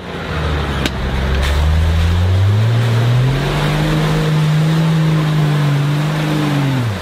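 Engine of a lifted Toyota off-roader on oversized mud tyres revving up over the first few seconds and held high while it drives through mud, then dropping off just before the end, over a steady rushing noise.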